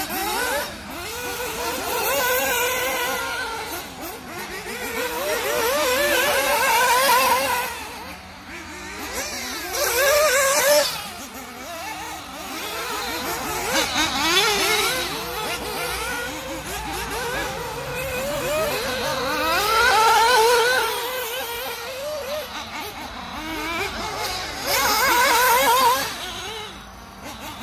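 Mugen Seiki MBX8 1/8-scale buggy's Bullitt B221 nitro engine revving up and down as it laps the track. The high, buzzing engine note keeps rising and falling, and swells loudest several times as the buggy passes close.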